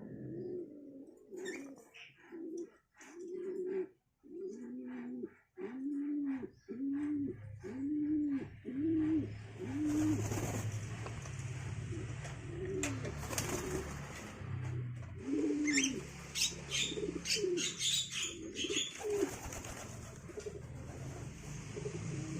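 Domestic pigeon cooing: a run of short rising-and-falling coos about one and a half a second, becoming more scattered about halfway through. Sharp higher chirps and clicks mix in over the second half.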